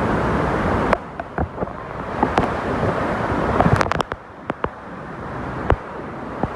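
Rushing water and spray at the base of Niagara Falls picked up by a waterproof camera: a steady roar that drops off suddenly about a second in and again past the middle, with sharp crackling clicks scattered throughout. This is the strange noise on the recording, which the uploader suspects may be water drops hitting the camera.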